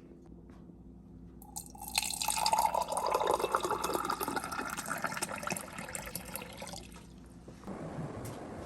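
Water running or pouring, as from a kitchen tap, starting about two seconds in and stopping about five seconds later, with a quieter, lower rushing noise near the end.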